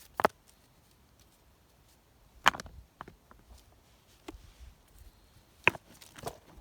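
A tool striking wood: three sharp blows spaced two to three seconds apart, with lighter knocks in between.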